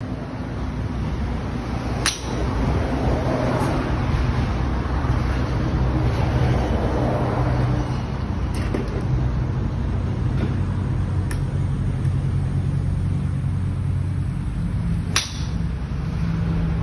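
Two sharp cracks of a golf club striking a ball off a driving-range mat, about two seconds in and again near the end, with a few fainter clicks in between, over a steady low rumble.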